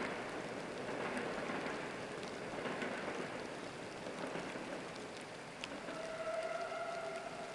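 A steady rushing noise, like rain or running water. About six seconds in, faint steady tones come in on top of it.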